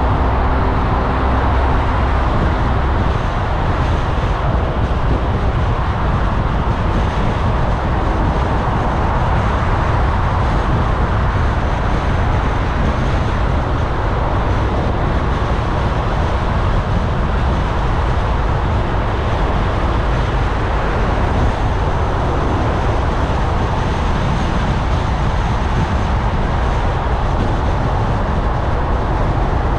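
Steady road noise of a car driving through city traffic: tyres on the road and a low engine hum, with no sudden sounds.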